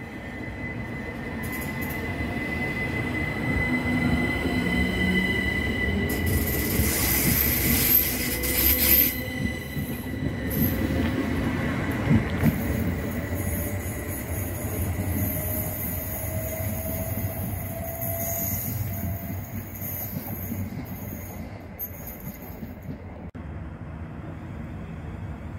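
Southern Class 377 Electrostar electric multiple unit pulling away from the platform and passing close by, its traction motors whining and rising slowly in pitch as it picks up speed, over a rumble of wheels on rail. A high steady squeal runs through the first eight seconds or so; the train is loudest around the middle and then fades.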